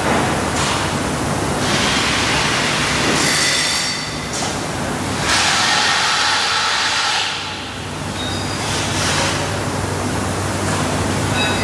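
Factory-floor background noise: a loud, steady hiss with a low hum underneath. It swells and eases, with a dip just before the middle and brief faint high tones now and then.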